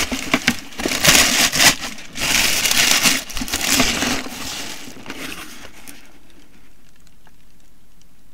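Packaging crinkling and rustling as it is handled, loud for about five seconds, then dying away to quiet room tone.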